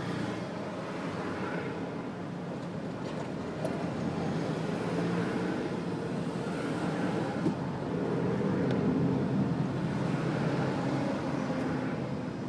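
Engine and road noise of a car being driven through city traffic, heard from on board. It is a steady low rumble that swells a little for a couple of seconds in the second half.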